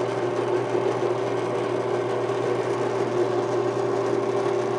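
Rikon bench-top variable-speed drill press running steadily with an even motor hum, its spindle turning at about 660 rpm.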